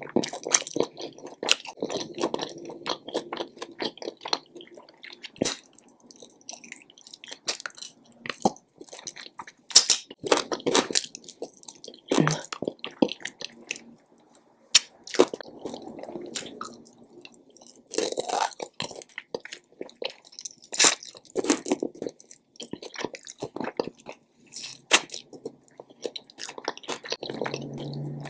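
Close-miked chewing and biting of a fried chicken wing: wet mouth sounds and lip smacks with sharp crunches at irregular intervals.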